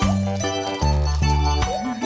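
Background music: an upbeat instrumental with plucked, guitar-like notes over a bass line.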